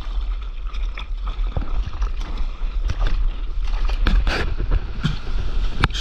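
Seawater splashing and rushing around a surfboard close to the camera as the board is paddled and then picks up a wave, with a steady low rumble of wind on the microphone. The splashing grows busier about halfway through.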